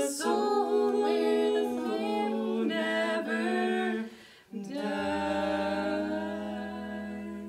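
Several voices singing in harmony without instruments, a woman's voice leading, then holding a long final chord. A low steady note joins under the held chord about five seconds in.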